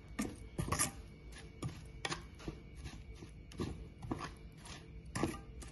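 Metal ladle scraping and clinking against a metal pan while stirring a thick chili-and-oil paste, in irregular strokes about twice a second.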